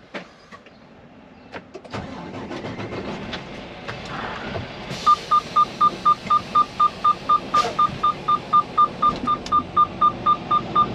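Semi truck's seatbelt warning beeping rapidly and evenly, about three beeps a second, starting about five seconds in because the driver's belt is unfastened. Under it the truck's engine is running, started about two seconds in after being shut off.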